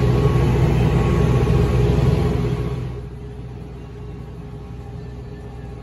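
Tractor engine running steadily under way, heard from the driver's seat. It drops to a much quieter steady hum about three seconds in.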